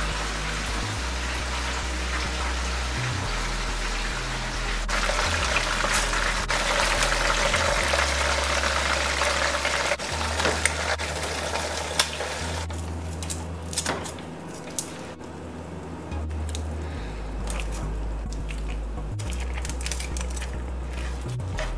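A steady hiss, louder for a few seconds, then chicken in tomato sauce sizzling in a frying pan, with metal tongs clicking against the pan again and again as the chicken is turned.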